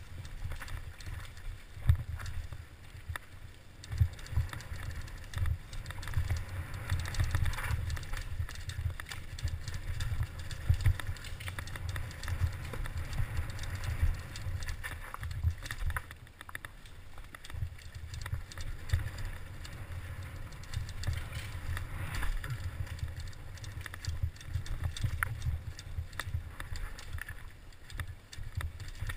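Giant Faith 2 downhill mountain bike riding down a rough dirt forest trail: tyres rolling over dirt and roots, with frequent sharp knocks and rattles as the bike hits bumps, over a constant low rumble.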